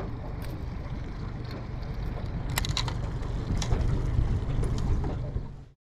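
Aluminium boat running across choppy water under outboard power: a steady low engine drone with water rushing along the hull and wind on the microphone, and a few sharp knocks as the hull hits the chop. The sound cuts off suddenly near the end.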